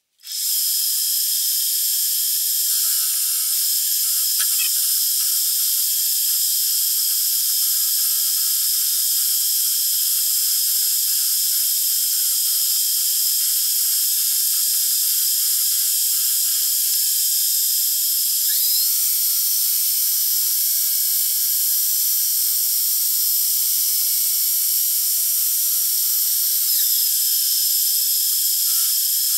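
Metal lathe turning a cast aluminium billet, the cutting tool taking a cut: a steady high-pitched whine and hiss. The tone shifts about two-thirds of the way through.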